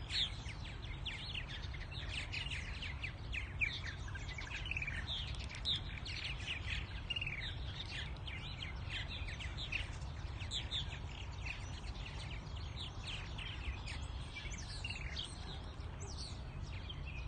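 A colony of purple martins chirping and chattering, many short quick calls overlapping without pause, over a steady low rumble.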